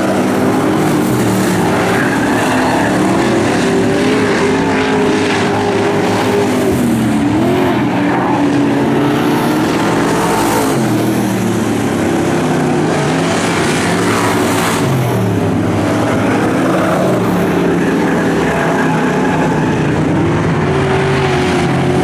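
Dirt-track race car engines running hard around the oval during hot laps. Several engines overlap, their pitch rising and falling as they lap.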